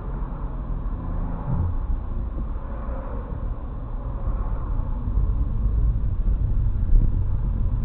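Car engine and road rumble heard from inside the cabin as the car moves slowly through traffic, a low steady sound that grows a little louder in the second half as the car gathers speed.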